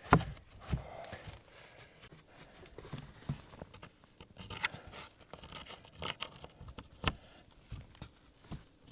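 Scattered wooden knocks and short scrapes as cedar-clad, 2x4-edged cabin wall panels are handled and slid together, with a sharper knock near the start, one about 7 seconds in, and another near the end.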